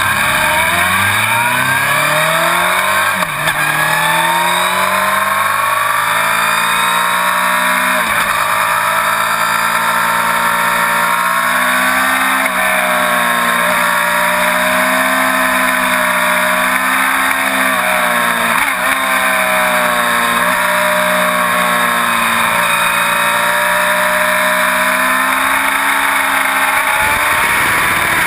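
Inline-four sport bike engine under hard acceleration, the revs climbing and then dropping sharply with each gear change, about four times. Wind noise from riding at speed rushes over the microphone.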